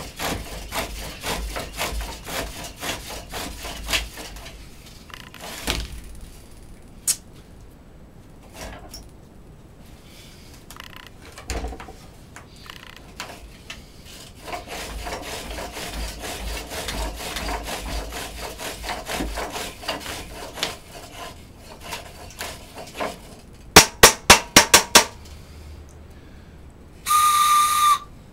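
Pole lathe drilling a short piece of wood with a spearhead bit: rhythmic scraping strokes of the bit cutting as the work spins back and forth, then a steadier rasping cut. Near the end there is a quick run of six sharp knocks, followed by a short, clear whistle tone about a second long.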